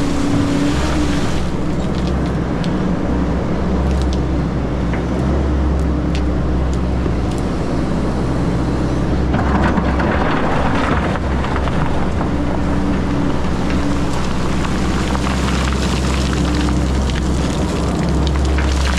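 Diesel engine of an XCMG 180 crawler excavator running steadily under work, with a louder rushing, clattering noise for about a second and a half near the middle.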